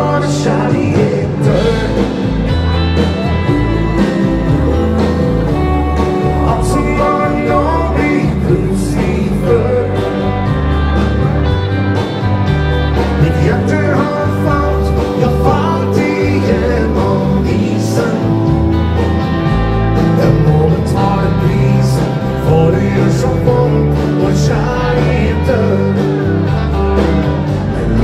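A live dance band playing, with a male singer over electric guitar, bass and drums, in a country and rock-and-roll style with a steady dance beat.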